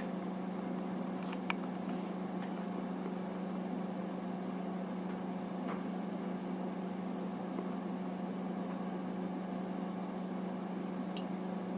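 Steady hum of a Tektronix TDS 540B oscilloscope's cooling fan, running after power-on and self test, with a few faint ticks.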